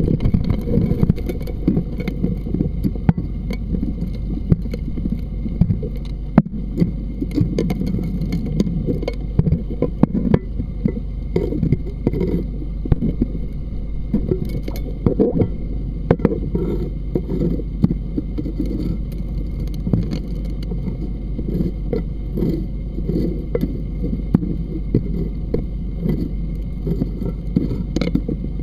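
Gold suction dredge working underwater: a steady low drone from the running dredge, with gravel and stones clicking and knocking as the nozzle sucks them up and scrapes along bedrock.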